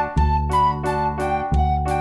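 Background music: a keyboard tune over a bass line, with a steady beat of about four strokes a second.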